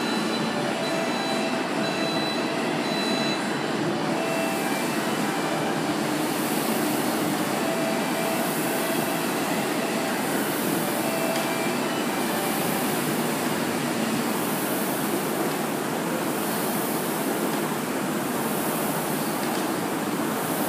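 Air-resistance rowing machine flywheel whirring steadily, its whoosh swelling with each stroke about every two seconds.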